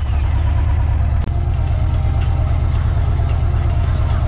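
Yamaha Stratoliner's 1,900 cc air-cooled V-twin idling steadily, just started. A single sharp click comes about a second in.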